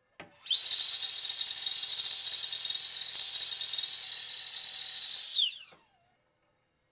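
Stainless-steel stovetop whistling kettle whistling at the boil. It is a steady high-pitched whistle that comes in abruptly about half a second in, then falls in pitch and dies away about five and a half seconds in.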